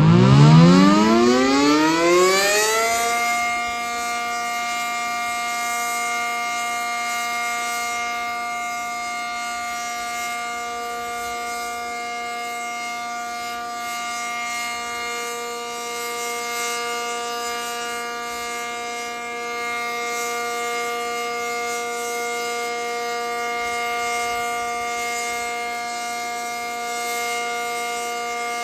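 ACA Cyclone 125 outdoor tornado warning siren winding up over about three seconds, then holding one steady, loud tone: the steady 'Alert' signal, sounded in a test.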